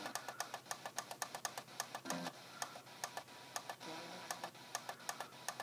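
iHome IP40 clock radio tuning up the FM band as its tune button is held or pressed repeatedly: a rapid run of clicks, about seven a second, one per frequency step, with brief snatches of station audio as it passes stations.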